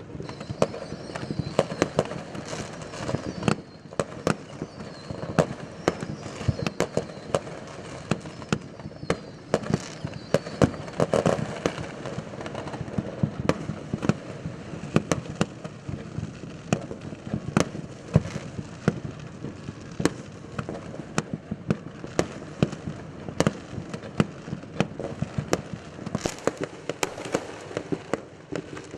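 Fireworks going off all around in a dense, irregular run of sharp bangs and crackles, with a few faint falling whistles near the start.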